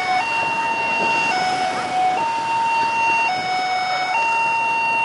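Two-tone hi-lo siren alternating steadily between a higher and a lower note, each held about a second.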